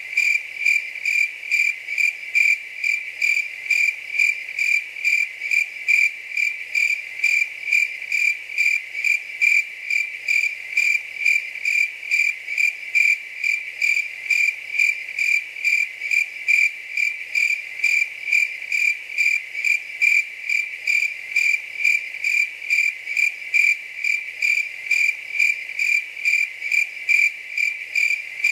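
A cricket chirping in an even, unbroken rhythm, about two to three high-pitched chirps a second.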